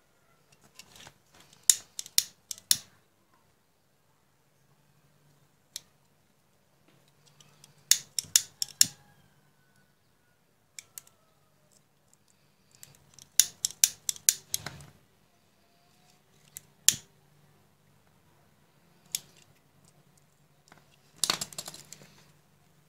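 Sharp clicks and snips from hand tools working electrical wire, in five short clusters of several quick strokes each, over a faint steady low hum.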